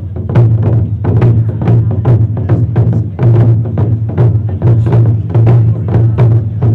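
Taiko ensemble playing chu-daiko barrel drums with wooden sticks: several drummers striking together in a fast, steady run of loud, deep strokes.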